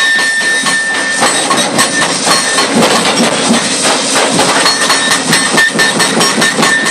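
Excavator-mounted hydraulic breaker pounding the concrete deck in a rapid, steady run of blows, several a second, with a metallic ring that fades about a second in and returns near the end.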